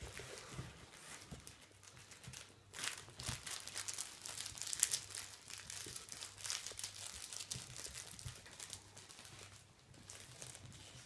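Irregular crinkling and rustling, strongest about three to five seconds in, over a faint low hum.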